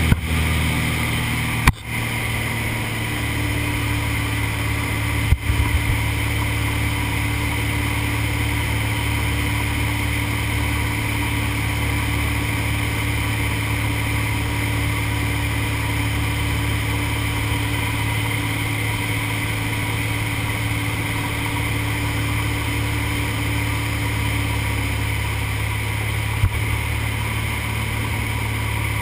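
Steady drone of a small single-engine plane's piston engine and propeller, heard inside the cabin in flight. A few brief knocks come through it, near the start and near the end.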